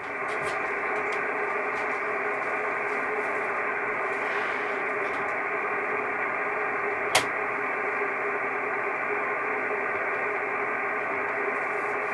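Kenwood TS-680S transceiver's receiver giving steady band hiss on 6-metre USB, cut off above the voice range, with a few faint steady tones in it: the band noise heard while listening after a CQ call, with no station answering. A single sharp click about seven seconds in.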